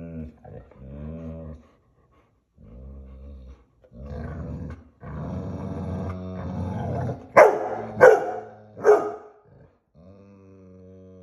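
Two Bernese Mountain Dogs play-growling at each other: a string of deep, drawn-out growls that grow louder, broken by three sharp loud barks about seven to nine seconds in, then a last low growl.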